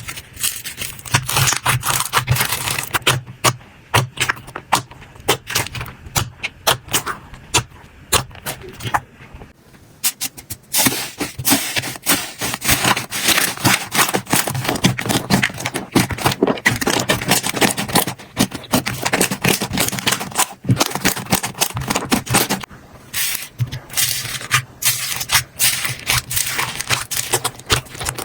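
Slime being squeezed, poked and pulled by hand, giving a dense run of small crackling clicks and pops. The clicking thins out briefly about nine to ten seconds in, then picks up again.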